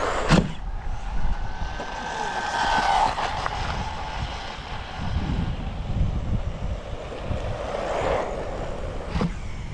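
Wind buffeting the microphone, with the whine of a 1/16-scale brushless RC truck on a speed run swelling about three seconds in and again near the end.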